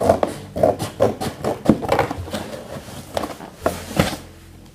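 Scissors cutting open the seal of a parcel box: an irregular run of snips, scrapes and crackles.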